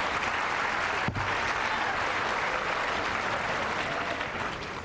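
Stadium crowd applauding a service ace, steady clapping that begins to die away near the end.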